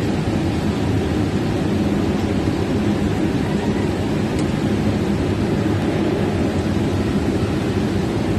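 Generator set engine running steadily, a constant low rumble with an even hum.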